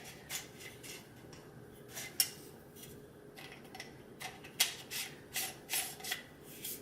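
Light clicks and knocks of the plastic and metal parts of a MiiCoffee PT1 portable electric coffee grinder being handled and unscrewed by hand during disassembly. The clicks come scattered, with a sharper one about two seconds in and a quick run of them near the end.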